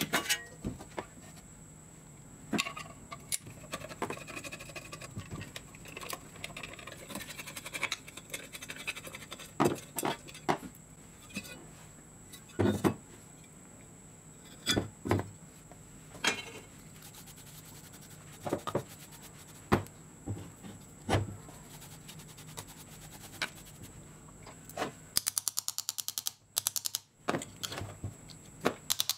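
Metal parts of a bench grinder being handled during disassembly: the housing and electric motor knocked and clinked, with some scraping. Near the end comes a quick run of rapid clicks.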